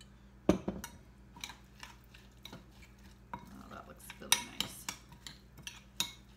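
A glass olive-oil bottle set down on the counter with a thump about half a second in, then a spoon stirring a wet marinade in a glass bowl, with scattered clinks and scrapes against the glass.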